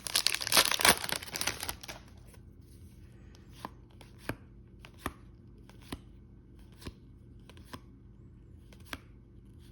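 A foil trading-card pack torn open with a crinkly rip for about two seconds, then the cards flicked through one at a time, a light snap roughly every second.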